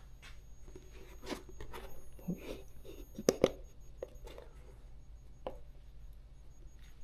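Handling noise of a hat being turned over in the hands: soft rustles and scattered light taps and clicks, with two sharper clicks about three and a half seconds in, over a faint steady high-pitched whine.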